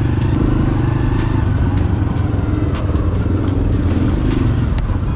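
Honda EX5 step-through motorcycle's small single-cylinder four-stroke engine running with a steady low rumble as the bike rides, with scattered sharp clicks on top.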